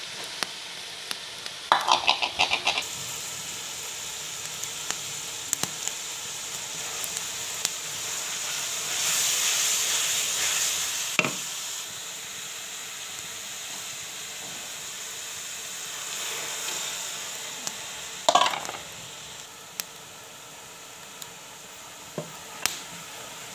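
Chopped vegetables sizzling in hot oil in a steel wok while being stir-fried, a steady hiss that swells for a couple of seconds midway. A spatula scrapes and knocks against the pan several times.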